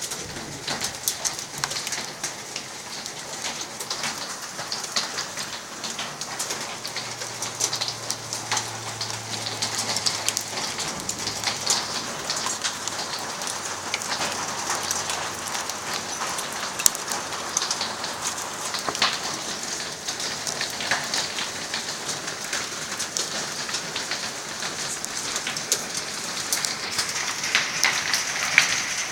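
Rain mixed with hail starting to fall: a dense, steady patter of drops and hailstones striking surfaces.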